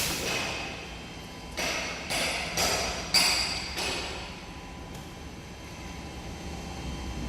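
Kingmac K20S double-head aluminium cutting saw making a test cut: a run of sharp metallic clanks, each with a short ringing tail, over the first few seconds, then only a low steady hum.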